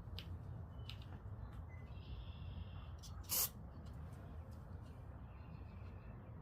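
A short burst of carburetor cleaner sprayed from an aerosol can, about three seconds in, over a low steady hum.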